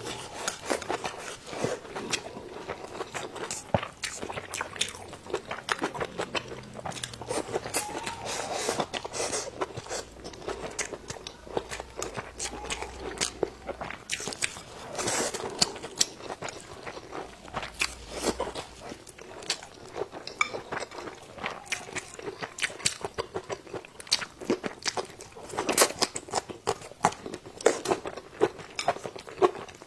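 A person chewing and biting food close to the microphone: a continuous run of crunches and wet mouth clicks at an uneven pace.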